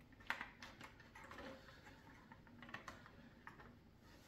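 Faint, scattered clicks and taps of small plastic model parts and thin wires being handled, a few separate ticks over a few seconds.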